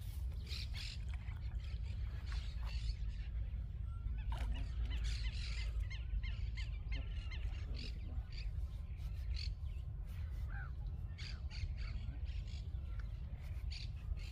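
Several birds calling, short squawking calls scattered throughout, over a steady low rumble.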